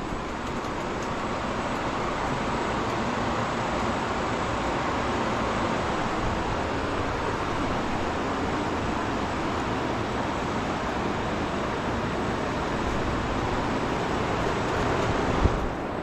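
Farm tractor running steadily under way, with low wind rumble on the microphone. A knock comes just before the end, where the sound changes.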